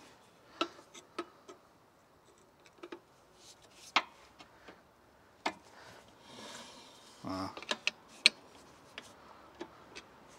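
Scattered sharp clicks and taps, about a dozen spread irregularly, as a tool levers the toothed adjuster wheel of a caravan's drum brake and the road wheel is turned by hand. A short rasp comes about seven seconds in. The brake shoes are being set so the wheel runs free without dragging.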